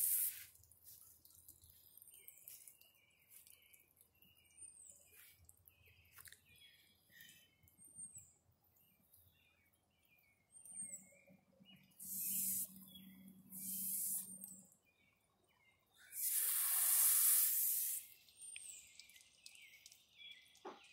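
Water spraying from a garden hose nozzle in three short bursts of hiss, the last and loudest lasting about two seconds. Between the bursts, birds call, one repeating a short falling chirp every couple of seconds.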